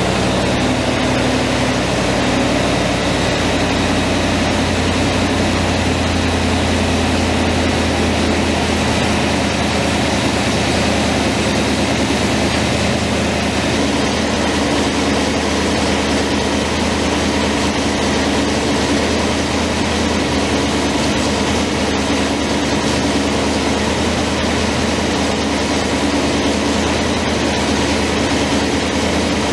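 Ford 351 Windsor V8 idling steadily, its low note shifting a little over the first several seconds as the engine is adjusted at the carburettor and distributor.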